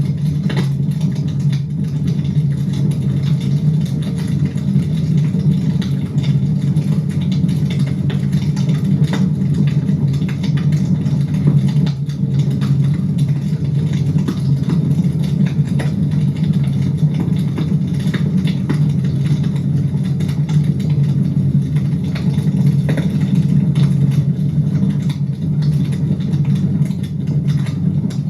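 Fire burning in a fireplace: a steady low rumble with scattered small crackles and pops.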